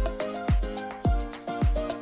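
Background music with a steady beat: a deep kick drum that drops in pitch, about two beats a second, under bright melodic notes.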